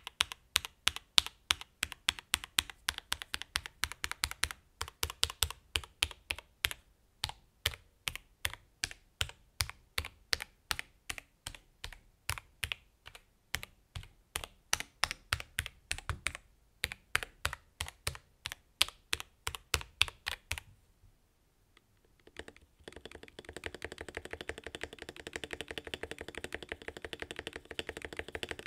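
ARDOR GAMING Katana mechanical keyboard with Gateron Mint switches being typed on: separate key clacks, several a second, for about twenty seconds. After a short pause comes a fast, unbroken rattle of keystrokes.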